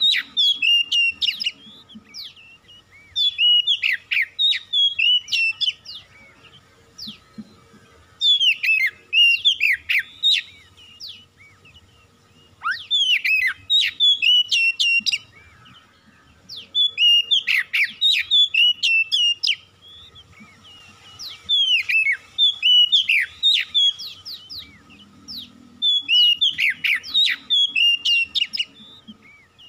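Oriental magpie-robin singing: loud bursts of quick whistled phrases full of sharp falling notes, a new burst about every four seconds with short pauses between.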